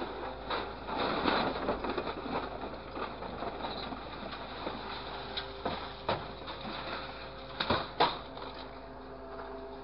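Orange-peel grapple on a scrap-loading crane truck closing into a pile of scrap metal: crunching and rattling of crushed cans and sheet metal about a second in, then several sharp metal clanks, the loudest about 8 seconds in as the load is lifted. A steady hum from the truck's running hydraulics continues underneath.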